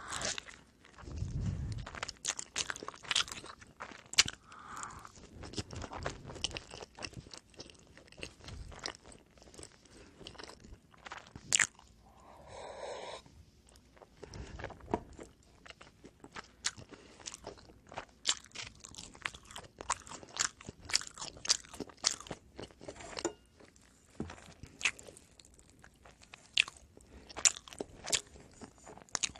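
Close-up chewing and biting of oven-baked pizza bread, with many sharp crunching crackles throughout.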